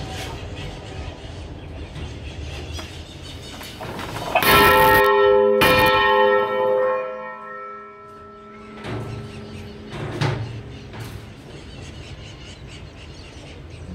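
Bronze church bell tolling a dobre, the Portuguese toll for the dead: two loud strikes about a second apart, some four seconds in, ring on in many tones and die away over a few seconds. Two fainter knocks follow a little later.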